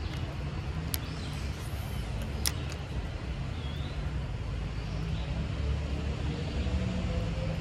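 Shallow creek water running over a riffle, with a steady low rumble underneath. Two sharp clicks stand out, about one second and two and a half seconds in.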